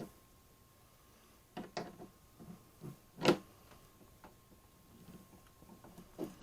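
A few light clicks and knocks as small hardware and tools are handled, the loudest a sharp knock about three seconds in.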